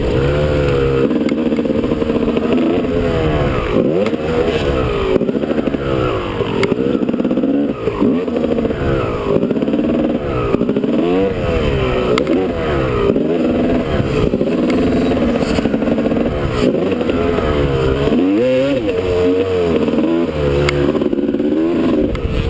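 Honda two-stroke motocross bike engine revving up and falling back again and again as the throttle is opened and shut through corners and over jumps, the pitch climbing and dropping every second or two.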